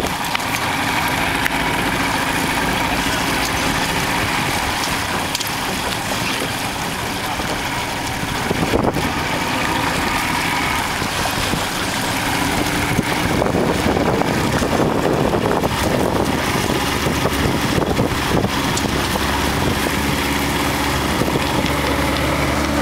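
Motorboat engine running steadily, picking up and rising in pitch near the end as the boat speeds up.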